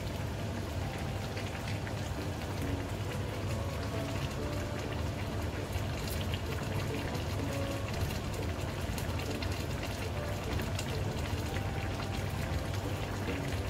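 Spiced chicken broth with chicken and chicken feet simmering in a wok, a steady stream of small bubbling pops as the broth cooks down and reduces, over a low steady hum.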